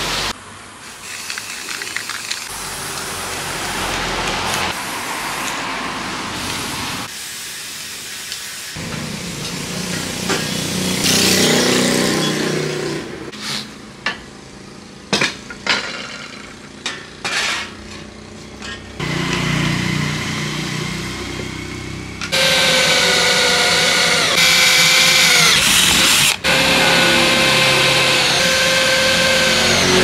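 A spray can hissing as paint is sprayed, then a run of knocks and clacks on metal. From about two-thirds of the way in, a power drill runs with a loud whine that sags for a moment under load as it bores into aluminium sheet.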